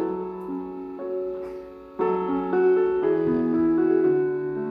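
Background piano music: held notes and chords changing every half second or so, briefly quieter just before a new phrase about two seconds in.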